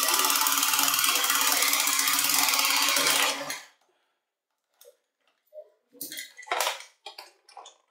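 Battery-powered dog coin bank's small electric motor and plastic gears whirring steadily as the dog swallows a coin, cutting off about three and a half seconds in. A few short plastic clicks and knocks follow as the bank is handled.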